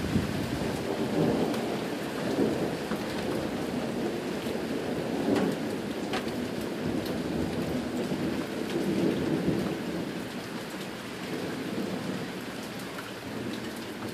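Rain falling steadily, with thunder rumbling low in long swells, one about a second in and another around nine seconds, and a few sharp taps of nearby drops.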